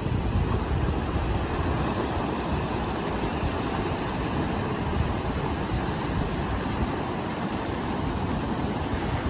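Ocean surf washing steadily, with wind buffeting the microphone: a continuous deep, flickering wash of noise.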